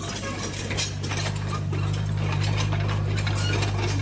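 Radio-controlled toy excavator's electric motors and gearing whirring steadily as the arm and bucket move, with scattered clicks and rattles throughout.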